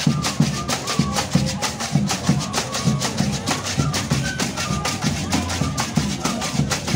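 Colombian folk street band playing: a tambora drum beating a steady rhythm under rattling shakers and struck percussion, with short, high flute notes over the top.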